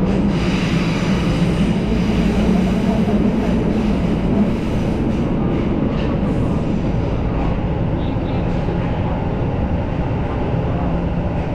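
Tokyo Metro Marunouchi Line subway train running, heard from inside the front car: a steady rumble of wheels on the rails. A low hum runs under it for the first few seconds and fades about halfway through.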